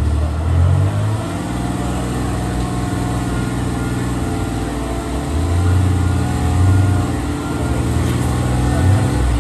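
Rock crawler buggy's engine running under load as it climbs a boulder ledge. The revs rise and fall with the throttle, and it gets louder for a stretch about halfway through.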